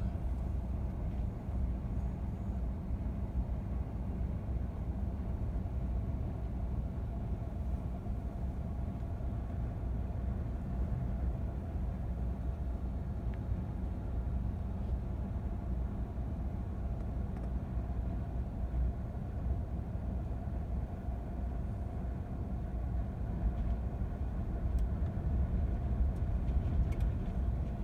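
Wind buffeting the microphone at the seashore: a steady, gusting low rumble that grows slightly stronger near the end.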